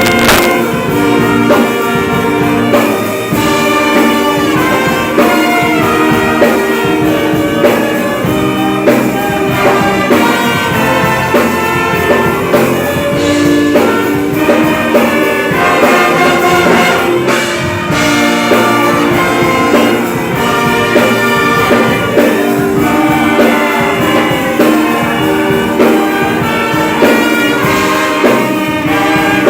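An orchestra playing an instrumental piece, with sustained notes moving steadily and no pause.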